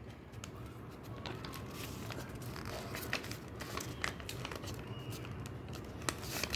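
A sheet of paper being folded and creased by hand into a paper aeroplane: soft crinkling and rustling with scattered faint clicks.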